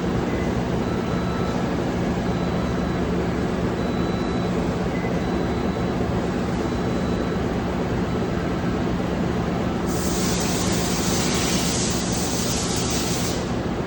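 Steady machine hum with faint whining tones from a DMG Mori NLX3000/1250 CNC turning center running. About ten seconds in, a loud hiss starts and lasts about three and a half seconds, then stops.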